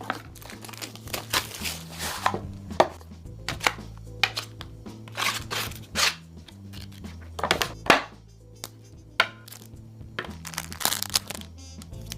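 Irregular sharp crunching clicks and taps, a few a second, over background music with a steady bass line.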